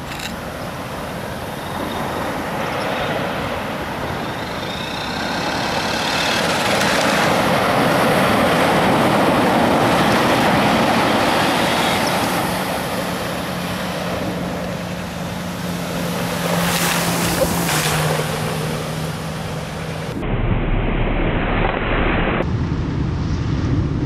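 Ocean surf breaking and washing up a sandy beach, with wind on the microphone; a wave swells and fades near the middle. Near the end it changes to closer, louder surf.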